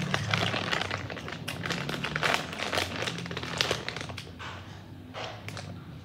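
Crinkling of a small Doritos bag as a hand rummages in it, mixed with the crunch of tortilla chips being chewed; the crackling is busiest in the first few seconds and thins out toward the end.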